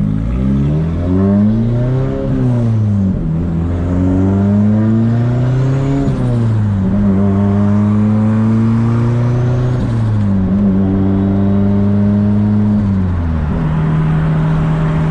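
Nissan 240SX S14's turbocharged four-cylinder engine under way, revs climbing and falling twice, then holding fairly steady with a couple of drops in pitch, settling lower near the end.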